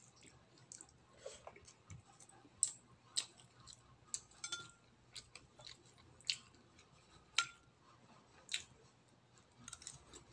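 Close-up chewing of cooked octopus: sparse wet mouth clicks and smacks about once a second, with a couple of light clinks of a spoon against a ceramic bowl.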